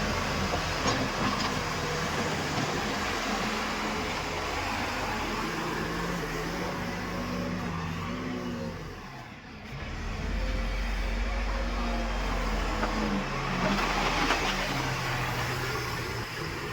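Diesel engines of heavy farm and earth-moving machinery running, the engine note rising and falling in steps as the machines work. About nine seconds in, the sound dips briefly before a deep low rumble comes up.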